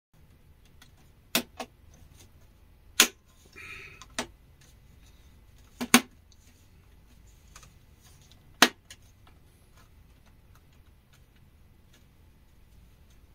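Plastic latches of an HP Pavilion computer's back cover snapping into place as the cover is pressed down along its edge: about seven sharp clicks spread over several seconds, with a brief scrape of plastic about four seconds in.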